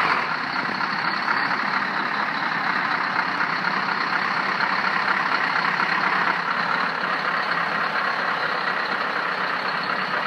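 Heavy lorry's diesel engine running steadily, with a thin high whine held over it.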